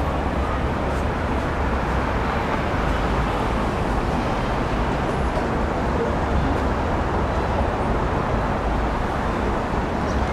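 Steady road traffic noise from vehicles on the surrounding roads and the flyover, an even rumble and hiss with no single vehicle standing out.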